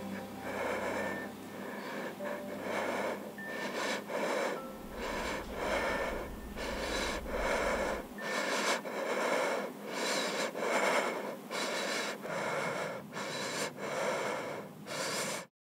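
A young woman's heavy, ragged breathing as she cries, in quick breaths a little more than one a second that grow louder, cut off suddenly near the end.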